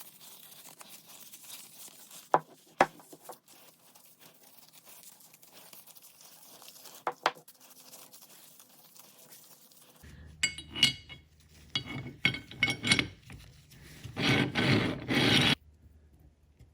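Oil being worked over the cast-iron parts of a Charles Parker vise: a few light clicks of metal parts being handled, then scratchy rubbing in short bursts, with the longest and loudest burst near the end.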